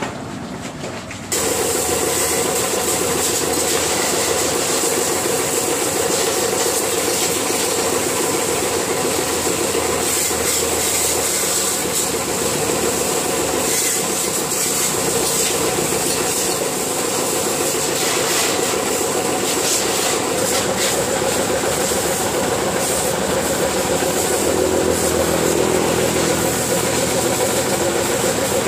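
Pressure washer running steadily: a motor-driven pump humming under the hiss of the water jet hitting a motorbike. It cuts in suddenly about a second in.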